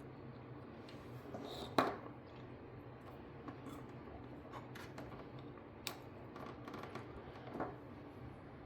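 Faint steady low hum with a few sharp clicks and small knocks. The loudest comes about two seconds in, and others follow near six and seven and a half seconds, as the new pallet-jack transformer is handled and hooked up for a test.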